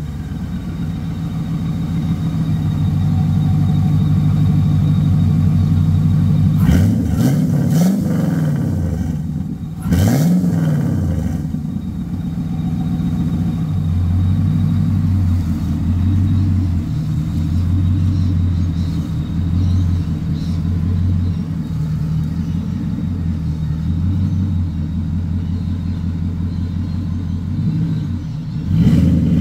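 Turbocharged Infiniti Q45 V8, fitted with a GT45 turbo, idling with a low, even pulse. It is briefly revved twice, about 7 and 10 seconds in, each time rising and falling straight back to idle.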